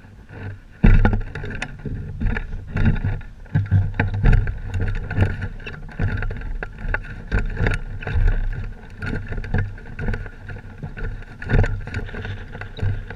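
Wind buffeting a hang glider's camera microphone in gusty low rumbles, with occasional short knocks and clicks as the glider is carried over the ground. The wind jumps up suddenly about a second in.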